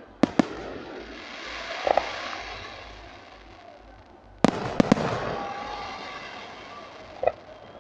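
Aerial firework shells bursting overhead with sharp bangs, two in quick succession near the start and a cluster of three about halfway through. Each is followed by a drawn-out crackling hiss that fades away.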